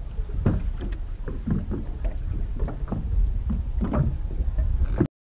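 Small waves slapping irregularly against the side of a rigid inflatable boat, over a steady low rumble of wind. The sound cuts off suddenly near the end.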